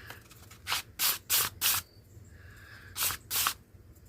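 Fine sandpaper rubbed in short strokes over a small wooden knob: a quick run of four hissing strokes about a second in, then two more about three seconds in.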